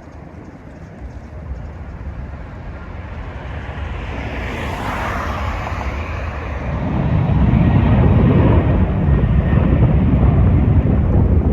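Jet airliner passing close, its noise swelling steadily louder, with a rushing whine that gives way to a heavy low rumble about seven seconds in.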